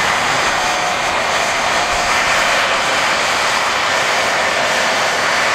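Jet car's jet engine running steadily at the start line: a loud, even rushing noise with a thin high whine over it.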